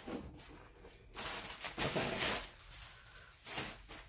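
Packaging being handled: plastic-wrapped items and cardboard box flaps rustling in a few short spells.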